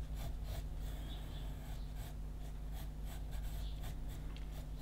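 Pencil scratching on paper in many short, quick back-and-forth strokes as lines are gone over and darkened, over a faint steady low hum.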